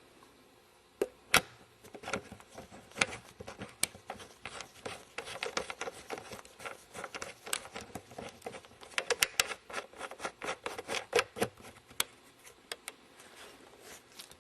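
Handling noise from a camera being mounted back onto a tripod: irregular clicks, knocks and rubbing, with a sharp knock about a second in and dense clatter in the middle.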